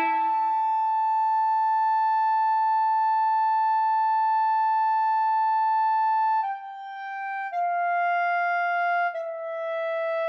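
Instrumental music: a single reedy, clarinet-like wind melody holds one long high note for about six seconds, then steps down through three shorter, lower notes.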